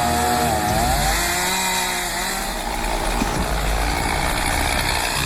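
Chainsaw running and cutting into a tree, its engine pitch rising and falling as the throttle and load change.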